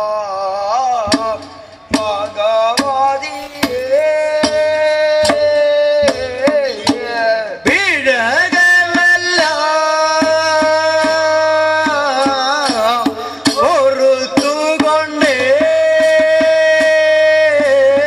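Male voices singing a Padayani song in long, wavering held notes through a stage sound system, with sharp hand-drum strokes at irregular intervals.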